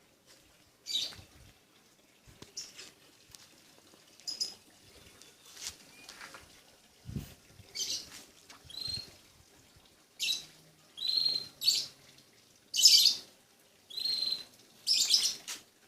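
A small bird chirping: short, high calls repeated every second or so, growing louder and more frequent toward the end.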